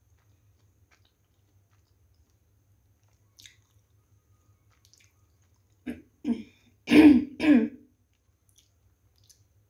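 A woman coughing and clearing her throat in four short bursts, the last two the loudest, after eating momos with spicy chutney.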